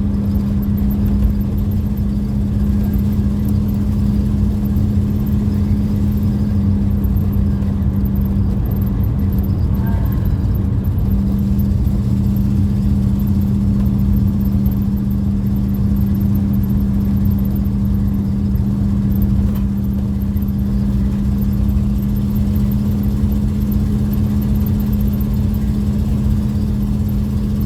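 Car cruising at a steady speed, heard from inside the cabin: a constant low rumble of road and engine noise with a steady droning hum.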